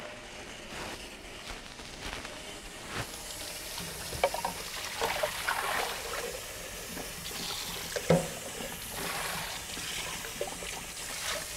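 Water running steadily, as from a kitchen tap, with a few clinks and knocks.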